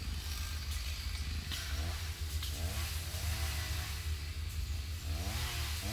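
Chainsaw engine revving up and down over and over, starting about two seconds in, over a steady low rumble.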